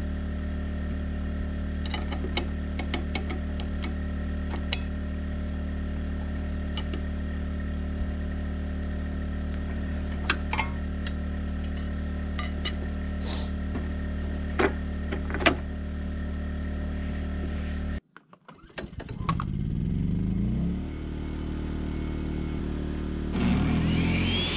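An engine running steadily, with scattered light metallic clinks as a wrench works on a jobsite table saw. After a sudden break about three-quarters through, a motor comes up in pitch, and near the end the table saw motor spins up with a rising whine.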